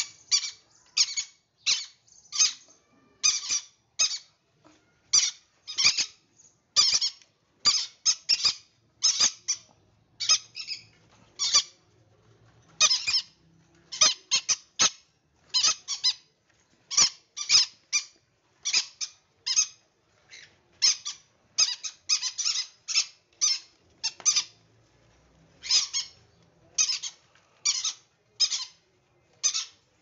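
Green-cheeked conures, pineapple colour variety included, giving short, shrill squawking calls over and over, about one or two a second.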